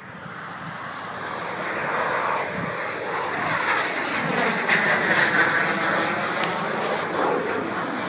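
Canadair CT-114 Tutor jet making a low pass overhead, its single turbojet heard as a rushing jet noise that swells, peaks about halfway through and then eases off. A high whine slides down in pitch as the jet goes by.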